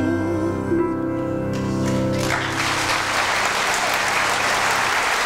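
The singer's last held note, with vibrato, and the accompaniment's final chord ring out and fade. About two seconds in, audience applause breaks out and keeps going.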